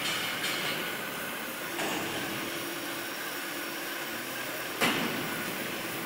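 CNC oxy-fuel flame-cutting machine running, with a steady hiss from the lit cutting torch. A low hum comes in about two seconds in, and there is a sudden loud pop about five seconds in.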